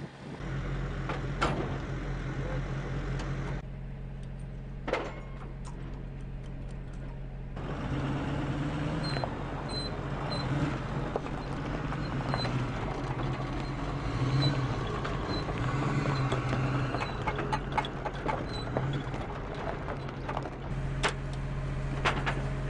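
Tow vehicle's engine running while it pulls a munitions trailer, with a wavering engine note and scattered metallic clanks and knocks.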